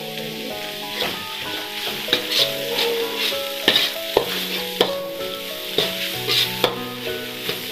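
Metal spatula scraping and clanking against a metal wok in irregular strikes while cabbage, greens and meatballs sizzle in hot oil, stir-fried until the greens wilt. Background music plays underneath.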